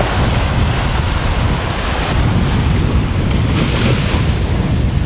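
Small waves breaking and washing up a sandy beach, with steady wind buffeting the microphone and a heavy low rumble.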